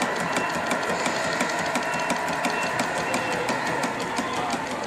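Small live-steam model engines running, with a fast, even ticking of about eight beats a second over a steady hiss.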